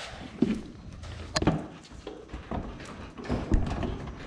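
Scattered knocks and taps from handling or working on something, with one sharp click about a second and a half in.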